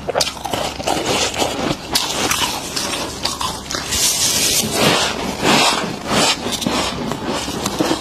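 Freezer frost crunching: packed frost is scraped off the inside of a chest freezer by gloved hands and bitten. Many quick crisp crunches, loudest around the middle as a handful is bitten.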